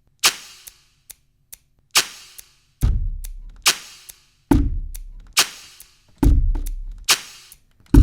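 Sparse drum beat of sampled one-shot hits: a sharp snare-like crack about every 1.7 seconds with small clicks between. About three seconds in, a deep booming kick joins, alternating with the cracks.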